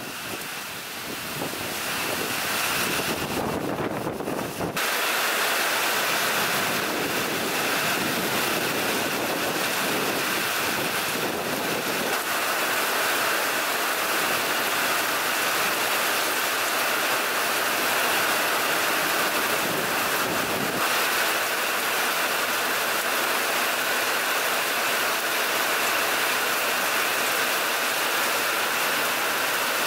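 Heavy monsoon rain pouring steadily, with strong gusting wind. Wind rumbles on the microphone for the first few seconds.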